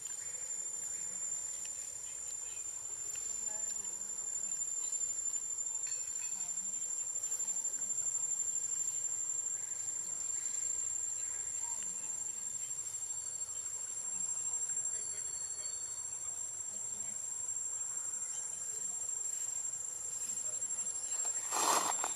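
Insects droning steadily on one high pitch, with a brief louder sound near the end.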